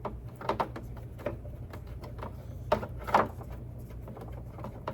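Scattered small clicks and taps from a Phillips screwdriver and fittings as the screws of a side-bag cover shock are tightened into its plastic mount, two of them louder near the middle, over a steady low hum.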